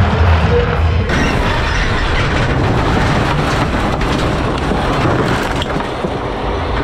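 Rallycross cars racing on a dirt track, heard as a dense, steady rush of car noise. Bass-heavy music fades out about a second in.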